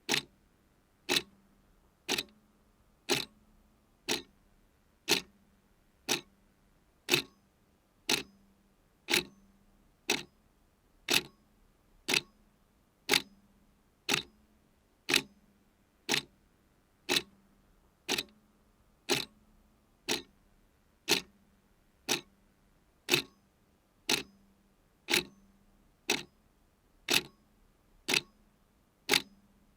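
A clock ticking steadily, about one sharp tick a second.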